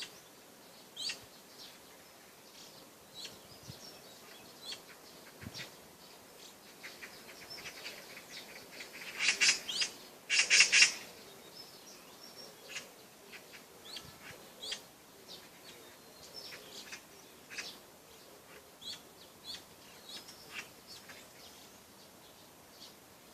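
Small birds chirping: short, scattered high chirps, with two louder, denser bursts about nine and ten and a half seconds in.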